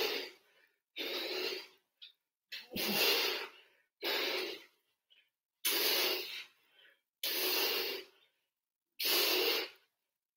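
A man breathing hard in a steady rhythm of forceful puffs, seven in all, about one every second and a half, with exertion as he works through sit-up repetitions.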